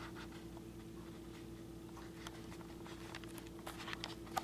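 Quiet room tone with a steady low hum. A few faint clicks and rustles come in the last second or so as the handheld camera is moved.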